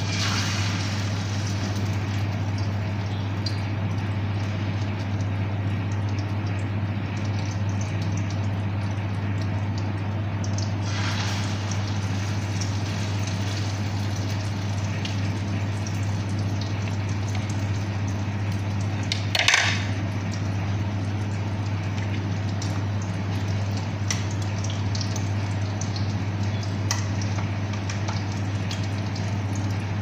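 Eggplant omelette (egg and eggplant mixture) frying in oil in a pan on a gas burner: a steady sizzle, louder at the start as the mixture hits the hot oil. A steady low hum runs underneath, and there is one brief louder noise about two-thirds of the way through.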